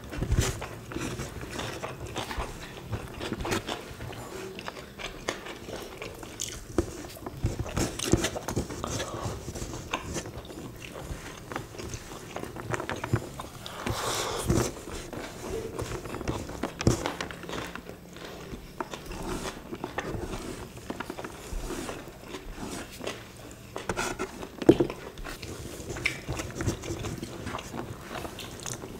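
Close-up eating sounds of two people chewing mouthfuls of rice and beef sambal eaten by hand, with many irregular wet clicks.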